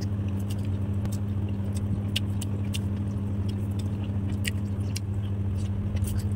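Mukbang-style eating sounds: scattered small clicks of chewing and slurping noodles, with forks touching plates, over a steady low hum.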